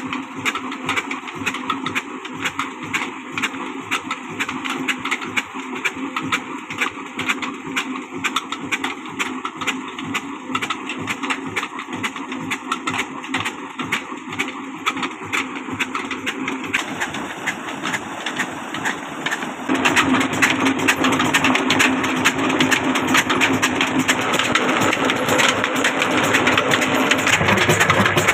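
22 HP Ruston Hornsby single-cylinder diesel engine running steadily with a regular rhythmic beat, under load driving a belt-driven tube-well pump. It grows louder about twenty seconds in.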